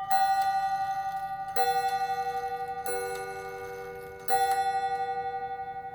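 Gilbert six-bell chime clock striking its bells: four separate strikes about a second and a half apart, on differing notes, each ringing on and fading before the next, with the last note dying away near the end.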